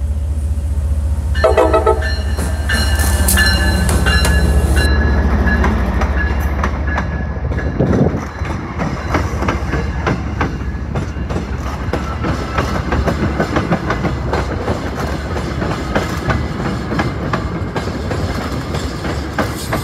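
MBTA diesel locomotive sounding its horn for a few seconds, starting about a second in, over the loud drone of its engine as it passes close by. After that the bilevel commuter coaches roll past with a steady clickety-clack of wheels over the rail joints.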